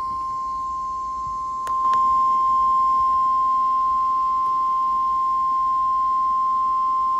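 Single steady alert tone near 1050 Hz, the NOAA Weather Radio warning alarm that announces a severe thunderstorm warning. It steps up in loudness after two faint clicks about two seconds in.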